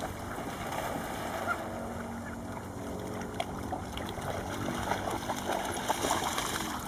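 Lake water sloshing and splashing around a golden retriever wading chest-deep, with the splashes picking up about five seconds in.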